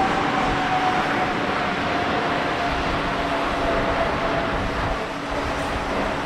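Boeing 747-8F freighter's four GEnx-2B turbofan engines at takeoff thrust during the climb-out: a loud, steady jet roar with a whining tone that slowly falls in pitch as the aircraft passes.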